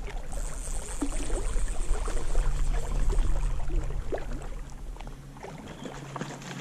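Water lapping around a float tube, with low wind rumble on the microphone that eases off about five seconds in. A thin high hiss runs through the first few seconds.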